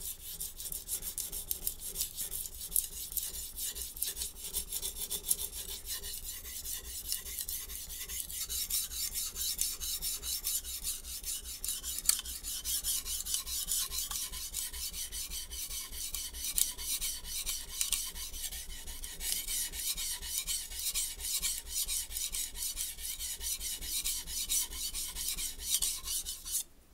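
A HAP40-steel Japanese chef knife being sharpened on a Shapton Glass 120-grit stone: a continuous scraping of steel on stone made of rapid back-and-forth strokes, which stops suddenly near the end.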